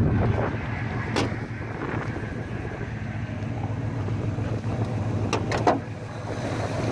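Ford 302 V8 with a lawn-mower carburettor running steadily and fairly quietly, heard from inside the car's cabin. A sharp click comes about a second in, and a few more near the end.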